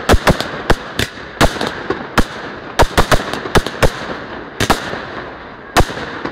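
Fireworks display: a rapid, irregular run of sharp bangs from aerial shells bursting, some coming in quick pairs and triplets, over a steady noisy background.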